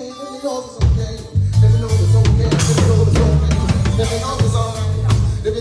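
Live band music: drum kit with bass drum and rimshots over a heavy bass line and sustained keyboard or guitar tones, the low end dropping out for about a second near the start before the full band comes back in.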